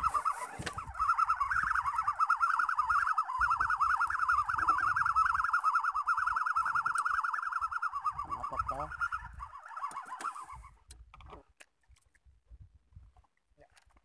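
Fishing reel being cranked to bring in a hooked fish: a steady, warbling whir that stops about ten seconds in.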